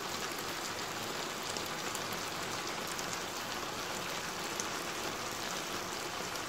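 Chilli soya chunks in a thick sauce sizzling steadily in a frying pan on a gas hob, with faint scattered crackles.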